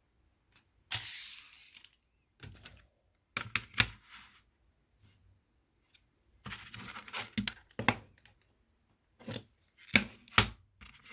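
Plastic wrapping being torn and crinkled off a CD case, with a long rip about a second in, then intermittent crackling and a few sharp clicks of the plastic case near the end.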